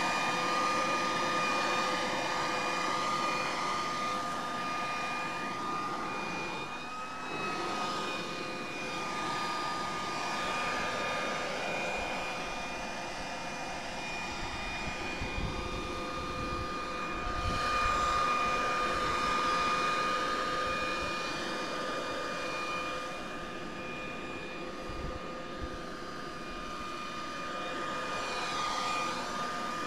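Corded electric leaf blower running steadily, a constant high motor whine over the rush of air, as it blows fallen maple seeds off the roof shingles.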